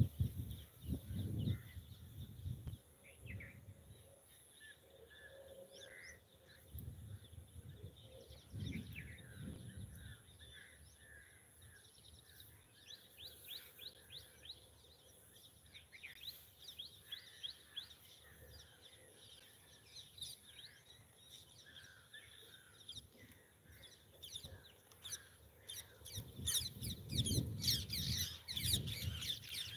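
Wild birds chirping and calling with many short, high notes, over a low outdoor background. Spells of low rumbling noise come at the start, about nine seconds in, and again, loudest, over the last few seconds.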